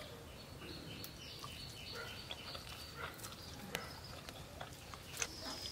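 A run of short, high-pitched animal calls repeating several times a second, with a few sharp clicks in between.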